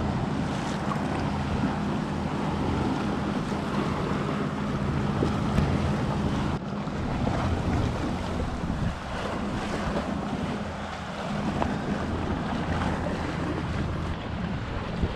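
Wind buffeting the microphone over open water, with a steady low engine hum from a motor boat running throughout.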